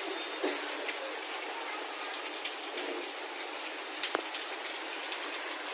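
Steady rain falling on garden plants and paving, an even hiss with a few sharper drops or drips landing, about half a second in and again about four seconds in.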